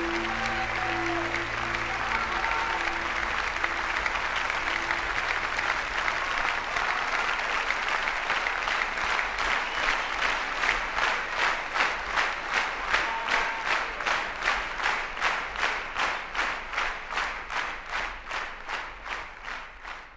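Concert audience applauding as a band's last held chord dies away in the first few seconds; the applause turns into rhythmic clapping in unison, about two claps a second, the call for an encore after the last song, fading out near the end.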